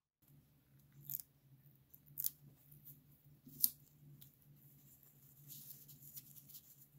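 Hobby knife blade cutting and trimming masking tape on a small metal pencil sharpener: three sharp snicks about a second apart, then a softer run of scratching near the end, over a faint low hum.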